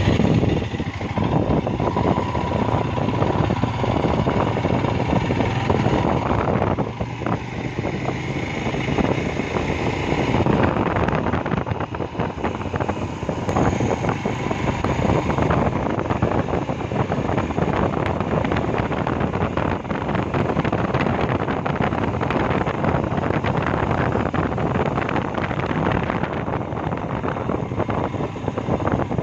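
Motorcycle on the move, its engine running under heavy wind noise on the microphone.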